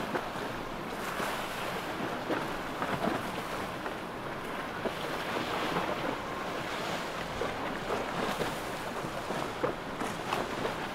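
Wind buffeting the microphone over waves on open water and the steady noise of a powerboat's engine, with scattered short knocks.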